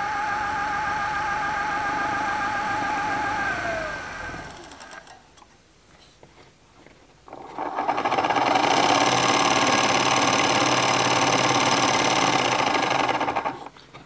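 Electric Eel Wheel 6 electric spinning wheel running with a steady, slightly wavering motor whine that winds down and stops about four seconds in. After a short pause the Electric Eel Wheel Nano 1.1 spinner starts and runs louder, with a hissier whirr, until it stops near the end.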